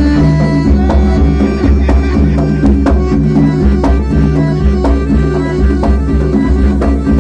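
Traditional Malay silat accompaniment music: drums struck in a quick, uneven rhythm over sustained melodic notes.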